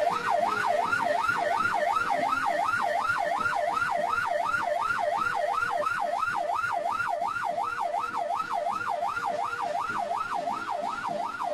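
Police vehicle siren wailing in a fast yelp, its pitch sweeping up and down about three times a second without a break.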